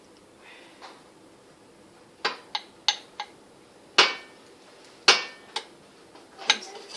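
Kitchen utensil knocking and clacking against a pan or bowl: about eight sharp, irregular knocks starting about two seconds in.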